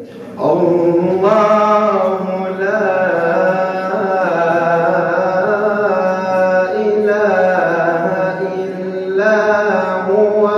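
A young man reciting the Quran in the melodic tajweed style through a mosque microphone: a solo voice sustaining long, ornamented phrases, beginning about half a second in.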